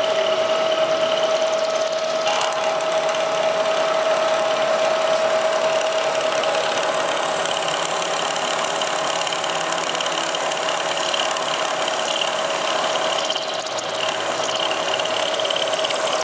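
Milling machine cutting a groove into a vise slide: a steady cutting sound with a strong, even tone over a noisy rasp, dipping briefly near the end.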